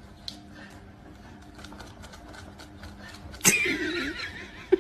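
Low room noise, then about three and a half seconds in a sudden cough-like burst of a person's voice, lasting about a second.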